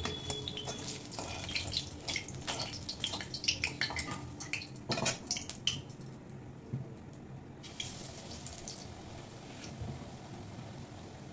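Hot oil in a kadai crackling and sizzling around a battered fritter, with a spatula scraping and clinking against the pan during the first half. After about six seconds the crackling thins to a quieter sizzle with only occasional pops.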